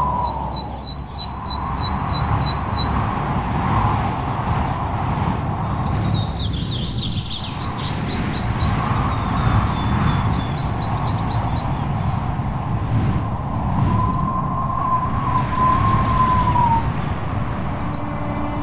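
Small songbirds calling and singing over a steady low background rumble. There is a quick run of about nine repeated high notes at the start, a fast trill about six seconds in, and short falling two-note phrases near the middle and end. A faint wavering tone, like a distant siren, rises and falls under the birds a little past the middle.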